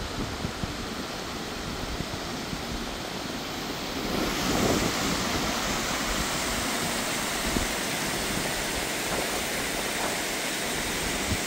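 Steady rushing water of a waterfall, becoming louder and brighter about four seconds in.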